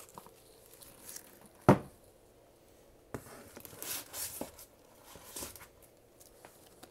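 A stack of bagged comic books being picked up and handled: a single thump a little under two seconds in, then plastic sleeves rustling and crinkling.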